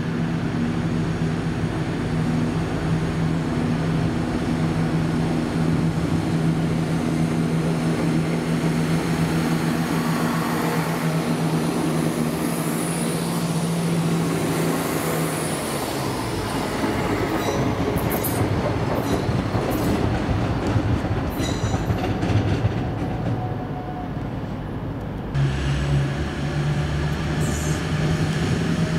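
A train at a station: a steady low engine hum that gives way about halfway through to wheel-on-rail noise with scattered clicks and brief squeals. Near the end it switches suddenly to a different steady engine hum.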